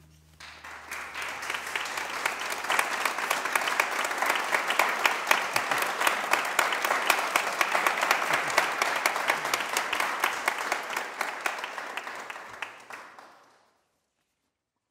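Audience applauding, starting about half a second in, building quickly and holding steady, then fading out and cutting to silence near the end.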